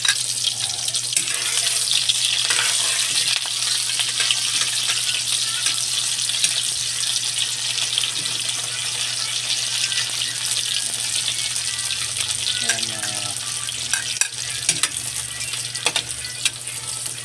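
Sliced red onions sizzling steadily in hot oil in a wok, stirred with a spatula that clicks and scrapes against the pan.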